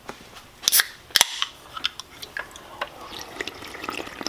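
Aluminium drink can cracked open with two sharp snaps about a second in, followed by soft sipping sounds as it is drunk from.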